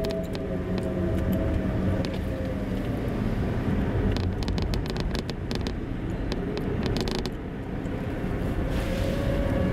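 Car running with a steady low rumble of engine and road noise, with clusters of sharp clicks midway and near the end and a faint tone that slowly dips and rises again.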